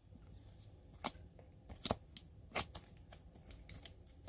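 Sleeved Pokémon trading cards being flipped through by hand: faint plastic slides and a few soft clicks as cards are moved across the stack.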